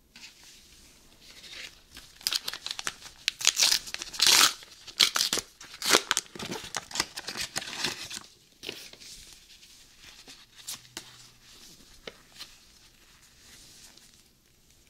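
Plastic-foil Pokémon card pack being torn open and crinkled: a run of sharp crackles from about two to eight and a half seconds in. After that come softer rustles as the wrapper and cards are handled.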